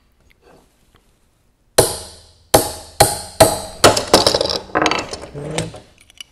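Ball-peen hammer striking steel calculator parts, trying to knock a stuck part off the digit-wheel shaft. About half a dozen sharp blows with a short metallic ring, starting about two seconds in, roughly two a second, then closer together in a rattling clatter.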